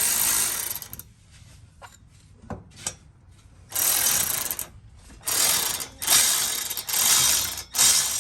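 A tool driving in the mounting bolts for a Packout mount, run in a string of short bursts of about a second each, with a longer pause after the first one.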